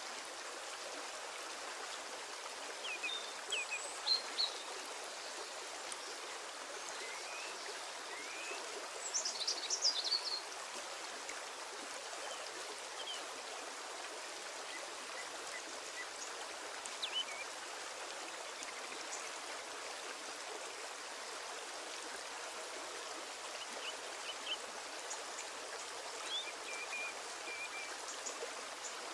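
Steady background hiss with scattered short, high chirps, the busiest cluster about nine to ten seconds in.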